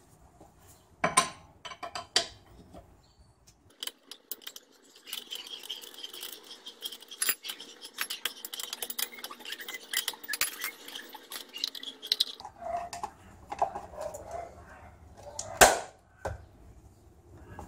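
Wrench tightening the wheel bolts on a car's alloy wheel: rapid metallic clicking and clinking for several seconds. A single loud snap near the end as the wheel's centre cap is pressed on.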